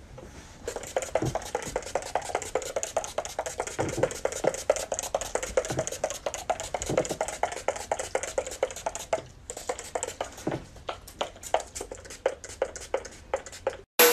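Rapid, irregular clicking and tapping of small hard objects handled by hand, pausing briefly about nine seconds in.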